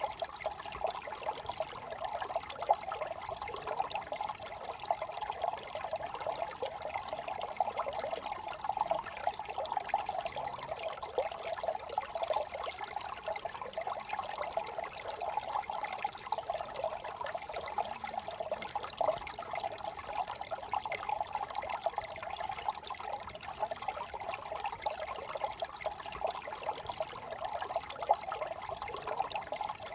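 Small brook trickling and babbling over stones, a steady, continuous water sound.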